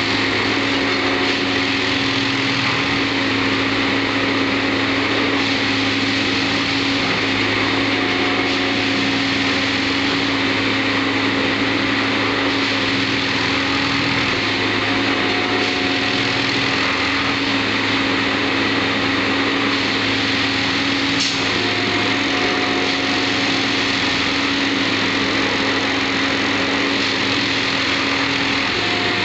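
Colas Rail track-tamping machine running, its engine a loud, steady drone with a constant hum, as it creeps slowly along the track.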